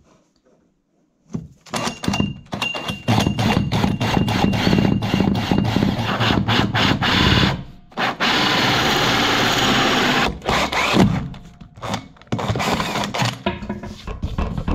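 Cordless drill driving a holesaw through a chipboard worktop to cut a tap hole. The cut starts stop-start with a high motor whine, then runs steadily for about three seconds before ending in a few short bursts.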